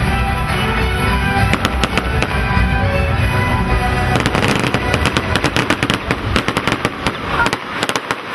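Aerial fireworks bursting over music, then from about halfway in a fast, dense crackling of many small reports.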